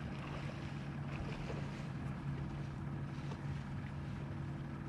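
A steady, low motor hum, with light wind noise on the microphone.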